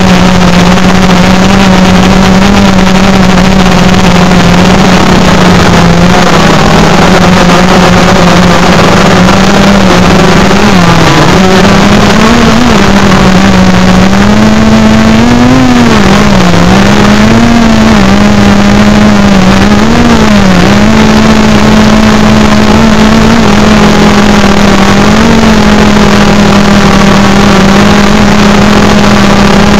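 DJI Phantom 3 Pro quadcopter's propellers and motors, recorded from a recorder mounted on the drone in flight: a loud, steady hum with a strong low tone. Its pitch wavers up and down several times about a third of the way in as the motors adjust speed, then settles again.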